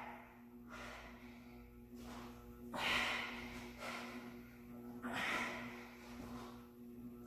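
A woman breathing hard from exertion while holding a plank with shoulder raises: a series of short, forceful exhales, about one every second or so.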